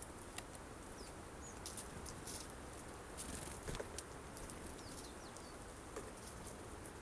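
Tits at a seed feeder: scattered light pecking taps and rustles, with a few brief, high chirp notes.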